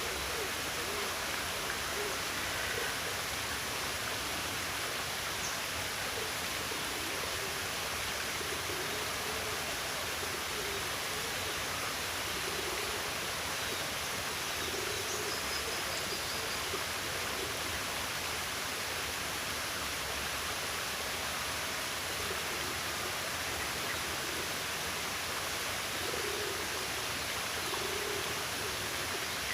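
Steady rushing of water, with a bird's low hooting calls coming through faintly every few seconds.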